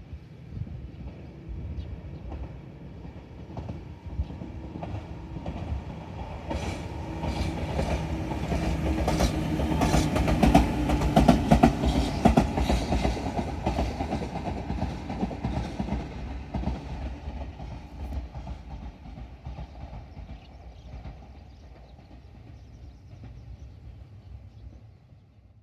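Tobu 10000 series electric train passing by. Its rumble builds, wheels click over rail joints at the loudest point about halfway through, and it then fades as the train moves away.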